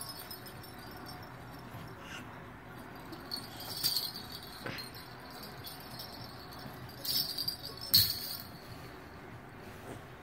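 Baby's handheld toy rattle jingling in a few short shakes against quiet room tone.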